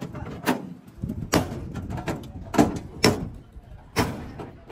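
A series of heavy knocks, five strong strikes at uneven intervals, each with a short ring after it.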